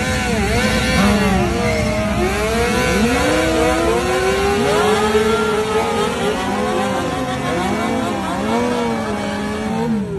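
Several sport motorcycle engines revving hard at once, their pitches repeatedly rising and falling and overlapping, as a bike spins its rear tyre in a smoky burnout.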